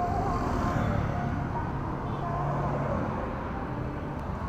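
Street traffic: motor scooters and cars passing on a town road, a steady low engine rumble.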